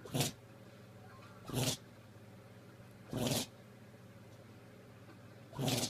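A small pet sneezing four times in short, sharp bursts a second and a half to two seconds apart, over a faint steady hum.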